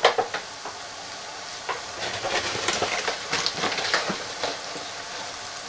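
Mushrooms, onion and garlic frying in melted butter in a pan on high heat: a steady sizzle with many small crackling pops, busiest in the middle of the stretch.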